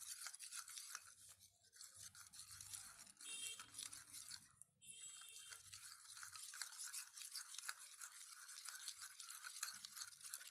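Glue and washing-powder solution being stirred in a bowl: faint, fast scraping strokes with a short pause near the middle, as the mixture begins to thicken into slime.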